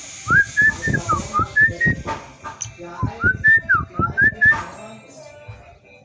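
Lovebird making an odd whistle-like call: a short phrase of rising and falling notes, given twice, with loud low pops beneath the notes.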